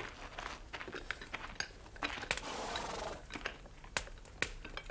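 A few scattered small clicks and light clinks, as of objects being handled on a table, with a soft rustle about two to three seconds in.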